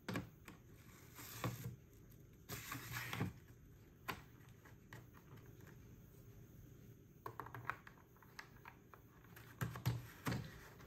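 Light plastic knocks, clicks and scraping as a Dyson V11 High Torque cleaner head's brush bar is slid into its housing and its plastic end cap is fitted and pressed and turned into place. There is a longer scrape about three seconds in and bursts of clicks near the end.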